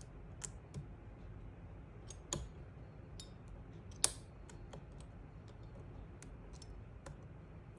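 Scattered small clicks and taps of metal tools working in a Browning X-Bolt's trigger assembly while fitting a new trigger spring, the sharpest click about four seconds in.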